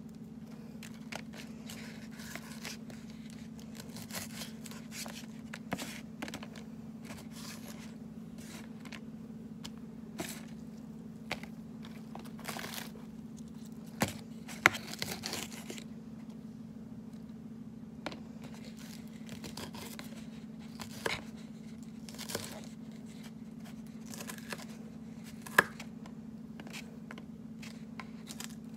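Lettuce leaves being torn and pulled apart from a head of lettuce, irregular crisp rustling and crunching, with a few sharp knocks, the loudest about 14 to 15 seconds in and near 25 seconds. A steady low hum runs underneath.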